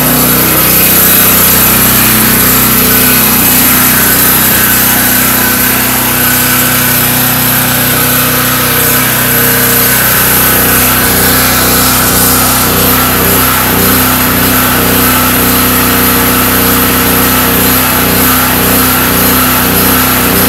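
Predator 4000 portable generator's 212 cc engine running steadily, freshly started, with a chugging 'choo-choo' beat in it.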